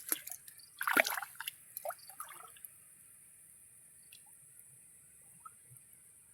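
Water splashing and dripping: a quick run of short splashes and drips in the first couple of seconds, the loudest about a second in, then it dies away.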